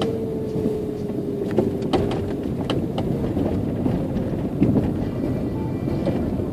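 Inside a moving car: a steady rumble of engine and tyre noise, with scattered light clicks and rattles from the cabin.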